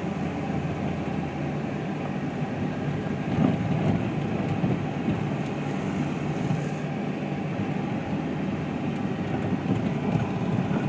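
Heavy rain falling steadily, a dense, even rushing noise, with a brief swell about three and a half seconds in.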